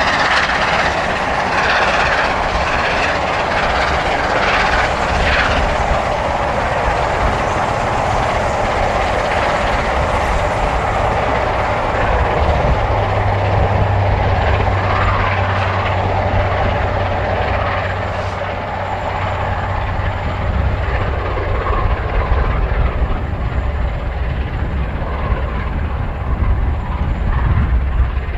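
A4 Pacific steam locomotive 60009 working hard with a passenger train, its exhaust a continuous loud rush. A low steady hum joins in about twelve seconds in and fades out several seconds later.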